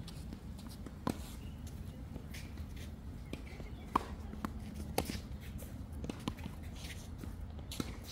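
A few short, sharp knocks, spaced irregularly several seconds apart, over a steady low rumble.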